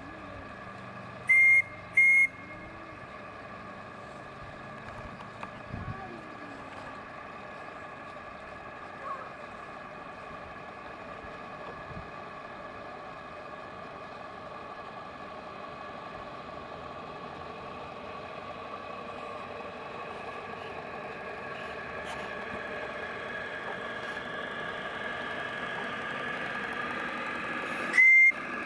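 Steam whistle of a live-steam model boat giving two short toots in quick succession about a second in, and one more short toot near the end, over a steady hum that slowly grows louder.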